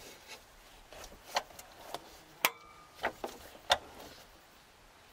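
Metallic clicks and knocks, about six at uneven intervals, the loudest a ringing clank about halfway through, from a large adjustable wrench on the crankshaft of the Iveco Daily 35-8's Sofim 8140.07 diesel engine as it is turned over by hand.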